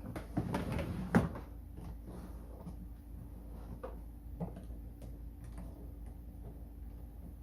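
Knocking and rattling of plastic parts and a tool being handled during assembly, a short clatter in the first second or so with the loudest knock just after one second, then a few light clicks.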